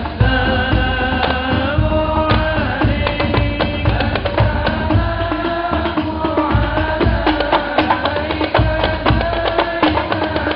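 Sholawat (qasidah) music: a male voice singing a devotional Arabic melody, with long held and bending notes, over a steady rhythm of hand-drum strokes.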